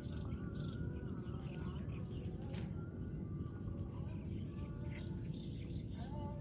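Small birds chirping and calling, many short, thin calls, over a steady low rumble.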